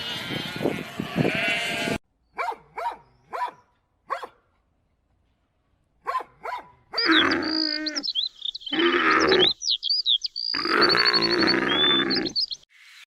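Animal calls of several kinds in short clips with abrupt cuts between them. A dense run of calls stops suddenly about two seconds in, short separate calls follow, and from about seven seconds in longer low calls sound under many high chirps.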